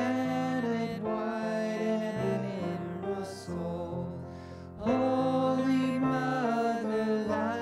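A hymn sung slowly to instrumental accompaniment, with long held notes. The sound softens between phrases about three and a half seconds in, and the next phrase enters strongly near five seconds.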